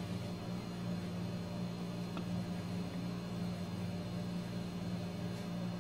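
A steady low electrical-sounding hum with a faint hiss underneath, unchanging throughout.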